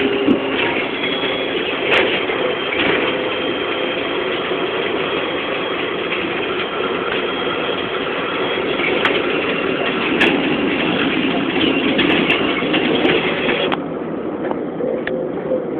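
BMC 220 SLF low-floor city bus heard from inside the passenger cabin while under way: steady engine and road noise with scattered knocks and rattles from the body and fittings. The noise eases slightly near the end.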